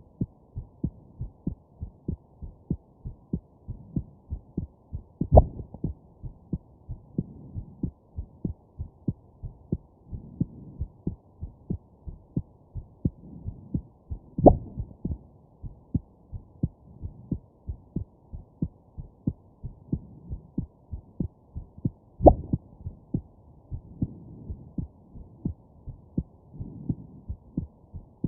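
Human heartbeat heard close up, a steady run of soft low thumps, broken three times by a sharp, louder jolt from a hiccup, about five, fourteen and twenty-two seconds in.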